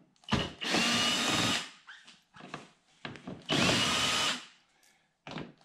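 Cordless drill/driver backing 7 mm screws out of the underside of a car's front bumper. The motor runs twice, about a second each time, and its whine rises briefly as it spins up. A few light clicks come between the runs.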